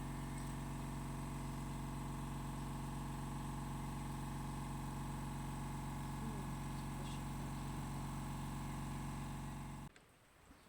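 Air compressor motor running steadily at an even pitch, then cutting off abruptly near the end, as when it reaches pressure.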